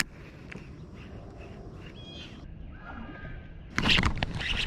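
Outdoor background with a couple of brief, faint bird calls. Near the end a much louder run of sharp, noisy sounds starts suddenly.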